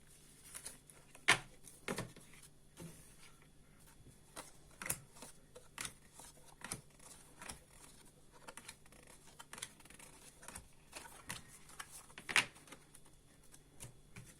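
Tarot cards being gathered and shuffled by hand: an irregular run of light clicks and snaps of card on card and on the table, with a few sharper snaps.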